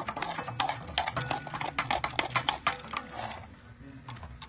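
Metal tool clinking and scraping inside a homemade crucible of melting aluminium cans in a wood stove fire, a fast, irregular run of sharp metallic clicks that eases off about three seconds in.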